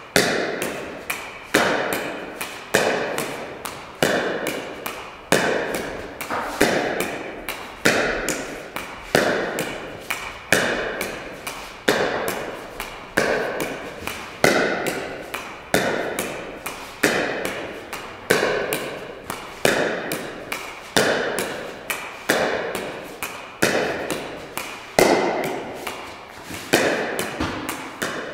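Pickleball paddle (Six Zero) striking a plastic pickleball against a wall in a steady rally: sharp pops about one every second and a quarter, each with a ringing echo, and lighter taps of the ball off the wall and floor in between.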